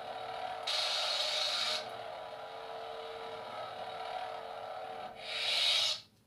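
A toy LED lightsaber's electronic sound effects play through its small speaker: a steady buzzing hum with two louder hissing surges, one about a second in and one near the end. The sound then cuts off abruptly.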